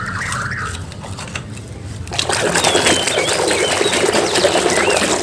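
Water splashing and running as a muddy toy vehicle is washed, louder from about two seconds in.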